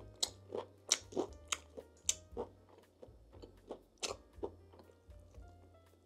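Close-miked bites and chewing of crunchy food. There is a quick run of loud crunches, about three a second, for the first two and a half seconds, then quieter chewing with two more crunches about four seconds in.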